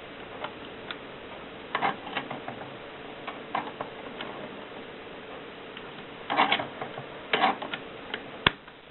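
Mercedes Selekta typewriter: irregular mechanical clicks and key strikes, some in short clusters, with one sharp, louder knock near the end.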